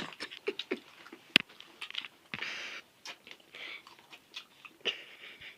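People chewing spicy chicken feet, irregular wet smacks and crunching clicks as they work the meat off the bones, with a short hiss about two and a half seconds in.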